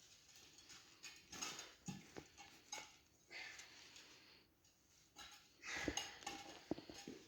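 Faint scraping and light metallic clinks of tire irons against the wheel rim as a dirt-bike tire is levered onto it, in short irregular bursts with a few small clinks near the end.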